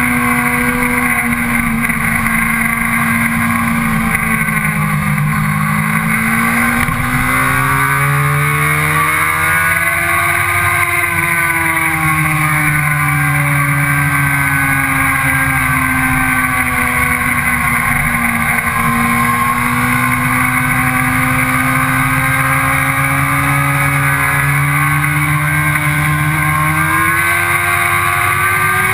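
Sport motorcycle engine running at speed on track, with steady wind rush. The engine pitch sags and climbs slowly: it dips about five seconds in, rises to a peak around ten seconds, eases down again, and climbs near the end.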